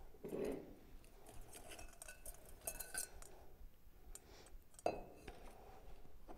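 Faint clinks and taps of a wire whisk and spoon against a stainless steel mixing bowl, with a sharper knock about five seconds in.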